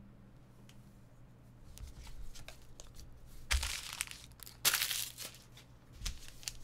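Trading-card pack wrapper crinkling and tearing as a pack is ripped open. It goes in two loud bursts about halfway through, with a low thump or two from cards being handled on the table.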